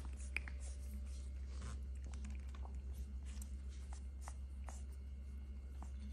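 Faint, scattered small clicks and soft scratchy rustles from Shih Tzu puppies moving about, with one sharper click just under half a second in, over a steady low hum.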